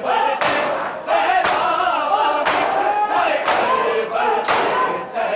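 Many men doing matam: slapping their bare chests in unison about once a second, while chanting a noha together in a crowd.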